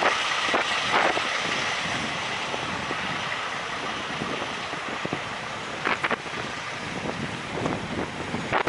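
Steady rush of road-vehicle noise that slowly fades away, with a few short knocks along the way.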